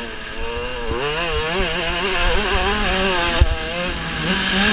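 Motocross bike engine revving and easing off as the throttle is worked, its pitch climbing, wavering and dropping. Low wind rumble on the helmet camera's microphone runs underneath.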